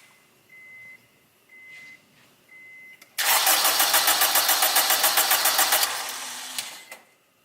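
A car's warning chime beeps about once a second, then the starter cranks the engine rapidly and evenly for about three seconds without it catching, before cutting off. This is an engine that cranks but won't start.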